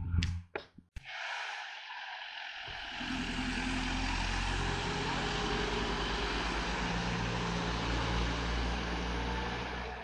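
Hill-climb race car's engine running hard on the course, swelling about three seconds in and easing off near the end. A few sharp clicks come first.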